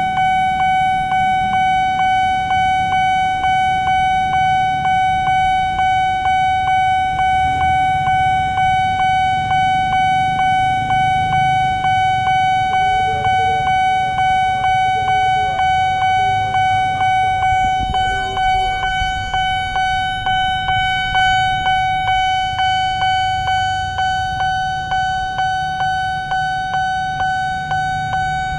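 Railway level-crossing warning bell ringing rapidly and steadily while the barrier is down, the sign that a train is approaching, over the low rumble of road traffic and motorbikes.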